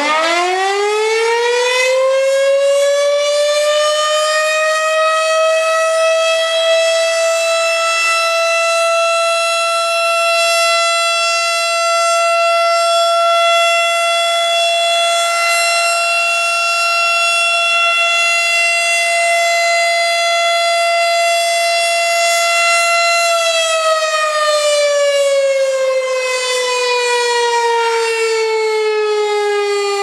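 Darley STH-10 electromechanical tornado siren sounding a short alert test. It winds up to a steady tone in the first few seconds, holds it for about twenty seconds, then winds down with a steadily falling pitch.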